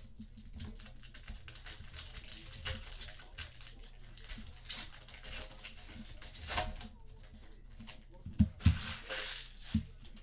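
Trading card pack wrappers being torn open and crinkled as packs from a box of football cards are opened, with a few dull knocks near the end as things are set down on the table.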